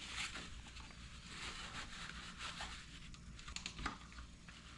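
Faint rustling and scattered soft clicks of handling, over a low steady hum.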